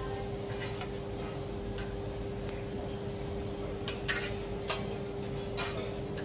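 About five light metal clicks and taps from teppanyaki cooking utensils on the griddle, the loudest about four seconds in, over a steady hum and low room noise.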